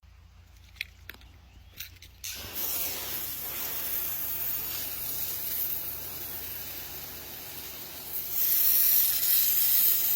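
Pressure washer spraying a high-pressure jet of water: a steady hiss that starts about two seconds in, after a few faint clicks, and gets louder near the end.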